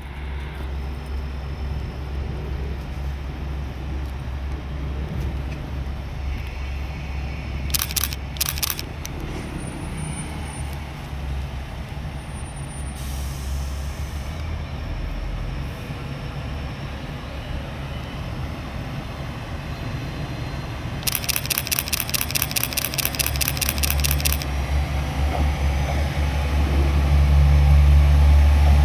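KiHa 47 diesel railcar's engine idling with a steady low hum, then running up louder near the end as the train pulls out. A few sharp clicks come about a third of the way in, and a rapid, evenly repeated ringing sounds for about three seconds shortly before the engine runs up.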